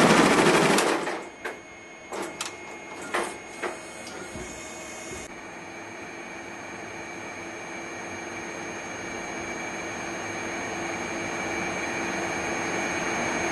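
ZSK embroidery machine: a loud rapid stitching noise stops about a second in, a few sharp clicks follow, and then a steady mechanical hum carrying a few fixed tones slowly grows louder.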